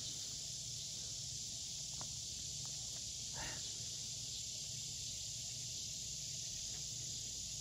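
Steady high-pitched insect chorus in the open air, with a low rumble underneath and a few faint clicks.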